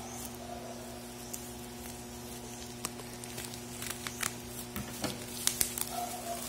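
Plastic bubble wrap crinkling and crackling as it is handled and cut open with scissors. The crackles come more thickly in the second half, with a cluster of sharp ones about five and a half seconds in, over a steady low hum.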